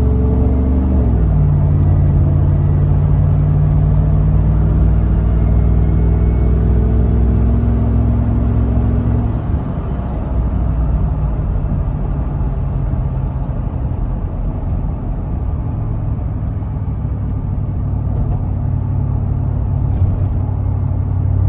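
Supercharged V8 of a Ford SVT F-150 Lightning pickup heard from inside the cab while driving. The engine note drops in pitch about a second in, as with an upshift, holds steady under light throttle, then falls away about halfway through as the throttle is lifted, leaving road noise and a low engine hum.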